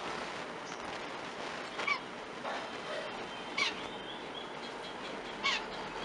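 A bird calling three times, short loud calls about two seconds apart, over a steady background hiss, with faint higher chirps in between.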